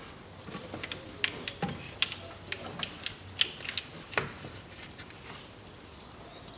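Hands pushing a rubber hose onto its pipe in a car's engine bay: a quick, irregular run of sharp clicks and light knocks from the hose, the clamp and nearby fittings, stopping about four and a half seconds in.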